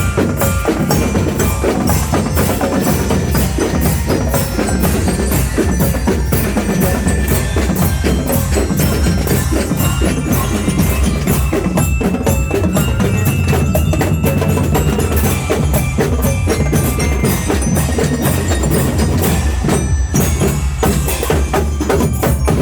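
Loud, continuous percussion music: drums beaten in a fast, dense rhythm, with bright bell-like mallet notes like a glockenspiel or bell-lyre over them.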